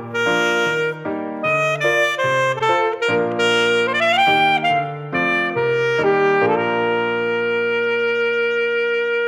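Saxophone playing a melody: a run of short notes, a slide upward about four seconds in, then one long held note from about six and a half seconds on.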